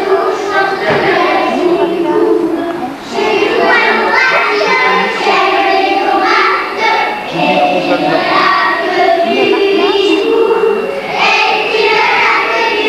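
A group of young children singing together as a choir, in phrases broken by short pauses about every four seconds.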